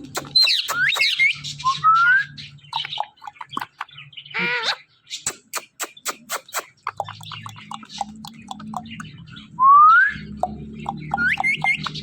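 Parrot whistling and chirping: a few short upward-gliding whistles, the loudest about ten seconds in, among quick sharp clicks and chirps.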